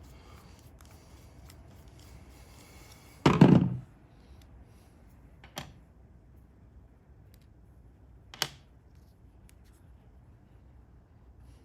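Handling of tools and small carburetor parts: one heavy thunk a little over three seconds in, then two short sharp clicks, about 5.5 and 8.5 seconds in.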